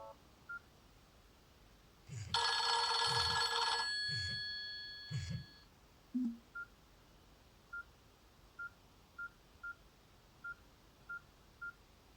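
Nokia N70 mobile phone playing a short, bright electronic alert tone from its loudspeaker about two seconds in, a cluster of tones lasting about a second and a half, with a few tones ringing on afterwards. It is followed by a string of short single beeps, all at one pitch, at uneven intervals.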